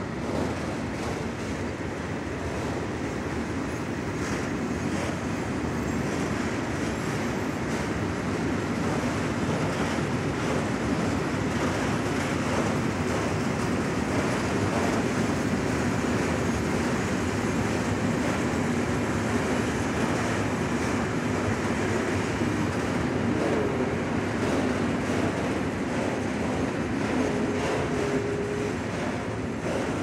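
Freight train of HŽ Cargo Eas open wagons rolling past steadily, wheels running on the rails, with a brief squeal near the end.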